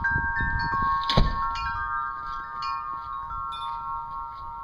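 Wind chime ringing: several clear metal tones struck at irregular moments and left to ring over one another. A single sharp knock about a second in is the loudest moment.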